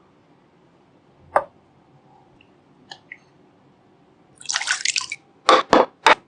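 Food-preparation handling sounds: a single knock, a couple of faint clicks, a short scraping rustle, then three quick loud knocks near the end, with a wet, dripping quality.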